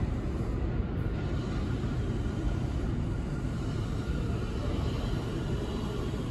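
Subway train approaching along the tunnel track into the station, a steady low rumble of wheels on the rails.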